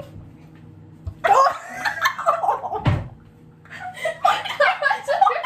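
Two young women laughing in two fits of giggles, with a short thump between them about three seconds in.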